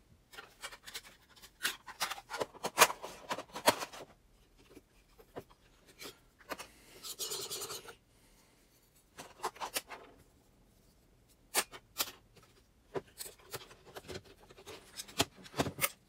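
Handling noise from camera filter gear: scattered small clicks and knocks, with a short rubbing scrape about seven seconds in, as a Cokin filter holder and adapter rings are worked off the front of a lens.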